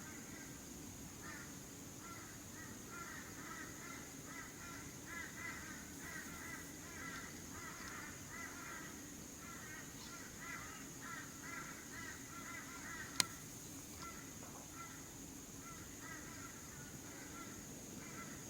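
Birds calling: long runs of short, repeated chirping notes, with one sharp click about two-thirds of the way through.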